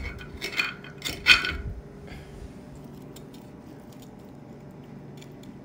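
Metal kitchen tongs clinking and scraping against a plate while picking up pieces of cooked salmon, with a few sharp clinks in the first two seconds. After that only faint ticks over a quiet room background.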